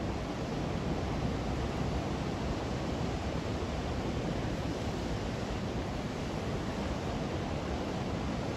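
Sea surf breaking and washing over coastal rocks: a steady rushing wash with no separate crashes standing out.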